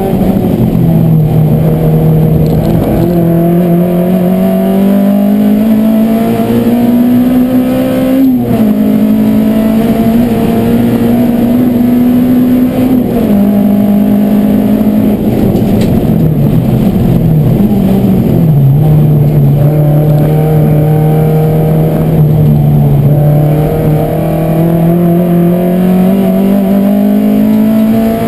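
Race car engine heard from inside the cabin, running hard as the car laps the track. Its pitch climbs and falls with acceleration and braking, with sudden drops at gear changes about 8, 13 and 18 seconds in, and it climbs again near the end.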